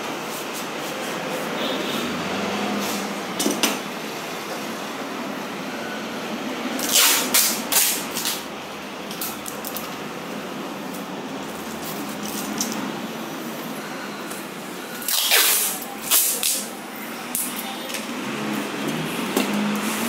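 Clear adhesive tape ripped off the roll in a few quick pulls, twice, about eight seconds apart, with faint handling clicks between.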